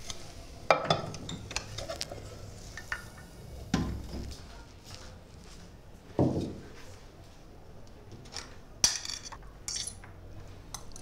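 Kitchen clatter of dishes and cutlery: a handful of separate clinks and knocks, with a low room background between them.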